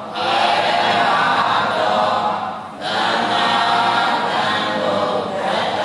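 Buddhist chanting: voices recite in steady phrases about three seconds long, with a brief pause for breath between phrases.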